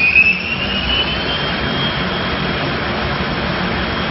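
Haas SL-40 CNC lathe spindle running under power, a steady machine hum with a high whine that rises in pitch over about the first second as the spindle speeds up, then holds steady.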